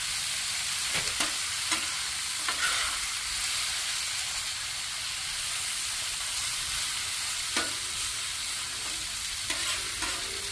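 Sliced potatoes and onions sizzling steadily in olive oil and butter on a hot grill, with a few scattered light clicks.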